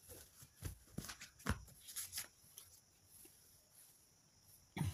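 Faint room tone with a handful of soft clicks and knocks in the first couple of seconds, then a short low thump near the end.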